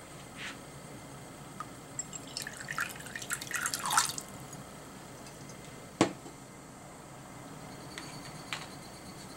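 Water poured in a thin stream into a glass bowl of shirodashi, splashing for about two seconds and stopping about four seconds in. A single sharp knock follows about two seconds later.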